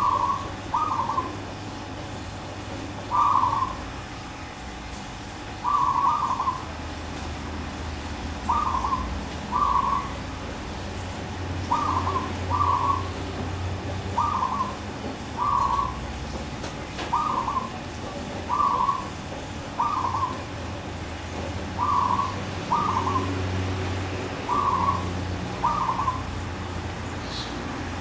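Zebra dove (merbuk) cooing: short, rolling coo notes, often in pairs, repeated every second or two.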